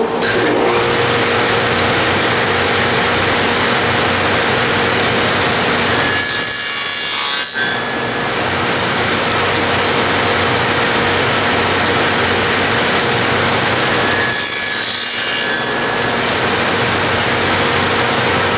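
Table saw with a stacked dado head running steadily while cutting rabbets in wooden drawer pieces. The cutting sound gets brighter and higher twice, about six and fourteen seconds in.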